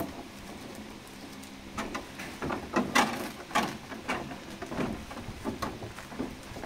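Bubble wrap and a clear plastic blister tray crinkling and crackling in irregular bursts as they are handled, starting about two seconds in and loudest around three seconds.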